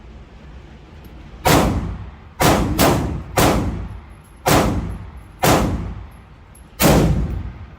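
Seven semi-automatic AR-15 rifle shots fired one at a time at an uneven pace, two of them in quick succession, each with a ringing tail.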